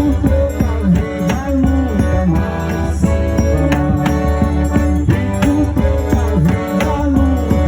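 Forró music played by a band: an instrumental stretch with held melody notes over a steady bass and an even percussion beat.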